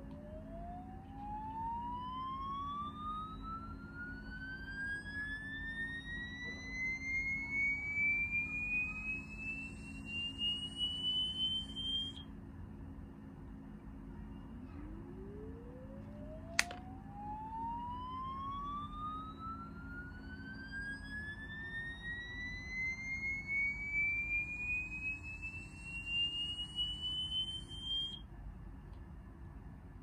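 Electronic test tone played through a smartphone speaker, gliding steadily up in pitch for about fourteen seconds and then cutting off, over and over: a sweep of the kind used as a 'head-tilt' or mosquito-tone sound for dogs. A single sharp click falls between two sweeps.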